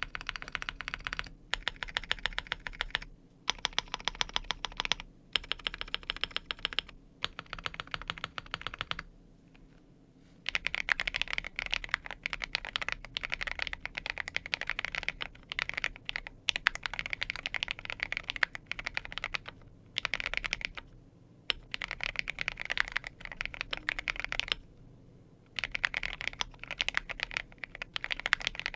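Fast typing on a Keychron Q8 Pro mechanical keyboard fitted with fully lubed Akko CS Piano switches. Runs of quick keystrokes are broken by short pauses, with a longer pause about a third of the way in.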